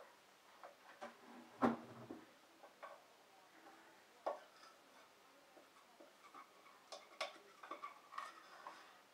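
Irregular clicks, taps and light clatters of a metal utensil against a frying pan and of food containers being handled as food is scraped out of the pan, with one heavier clatter about one and a half seconds in and a quick run of taps near the end.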